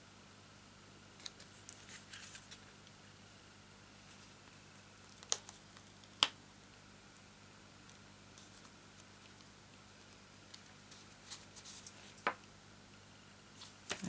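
Faint taps, clicks and rustles of cardstock being handled and pressed down by hand, the sharpest click about six seconds in, over a low steady hum.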